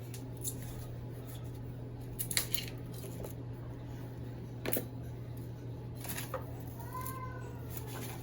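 Scattered scrapes and taps of soil being scooped and pressed into a plant pot, the loudest about two and a half and five seconds in, over a steady low hum. A brief rising-and-falling squeak comes about seven seconds in.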